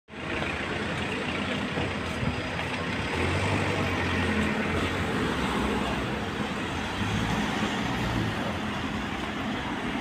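City street traffic: motor vehicles running and passing in a steady wash of road noise, with a low engine hum that swells from about three seconds in and fades near the end.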